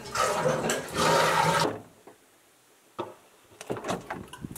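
Toilet flushing, a loud watery rush lasting about a second and a half that cuts off abruptly. A few light clicks and knocks follow near the end.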